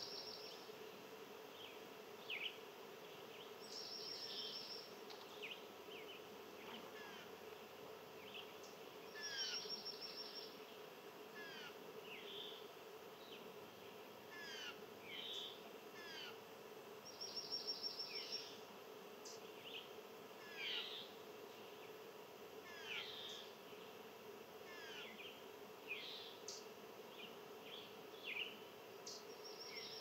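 Small songbirds calling: many short falling chirps, and a brief high, rapid trill that comes back every few seconds, over a steady low hum.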